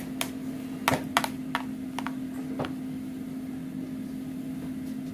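Spoon clicking against a bowl as a glass-noodle salad is tossed: a handful of light, irregular clicks in the first two to three seconds, then they stop, over a steady low hum.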